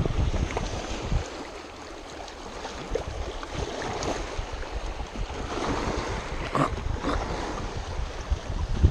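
Wind buffeting the microphone over small lake waves washing onto a rocky shore, with a few light knocks from handling.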